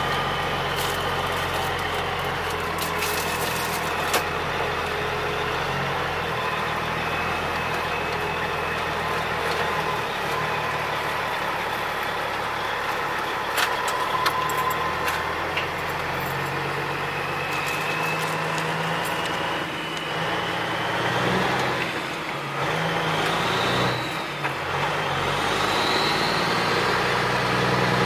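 Caterpillar 3406E inline-six turbo diesel in a Peterbilt 379 running after a full overhaul, its engine speed rising and falling several times, louder for a few seconds near the end. A few brief clicks and a faint rising whistle are heard over it.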